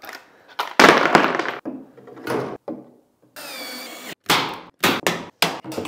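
A series of sharp knocks and thuds, with a short squealing, sliding sound a little past halfway and a quick cluster of knocks near the end.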